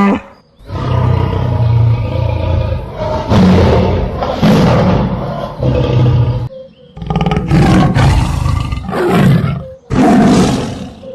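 A large animal roaring: several long, deep roars with short breaks between them.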